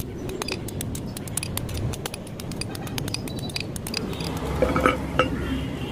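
Hand hammer striking a steel billhook blade on an anvil: a quick, uneven run of sharp metallic clinks. Near the end a few louder blows ring out briefly with a metallic tone.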